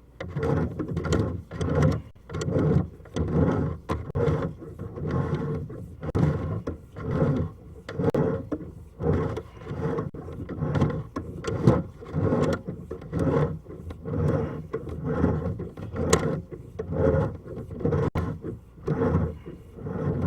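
A drain inspection camera's push-rod being pulled back out of the pipe hand over hand, rubbing and clicking in rhythmic strokes about one a second.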